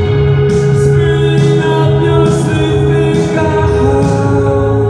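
Live band music in a club, with a man singing. A steady drone note is held throughout over a lower line that steps between pitches, with regular hissing cymbal-like hits on top.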